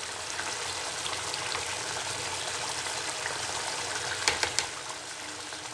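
Prawn curry in coconut milk bubbling steadily in a pan on the stove, with a few light clicks about four seconds in.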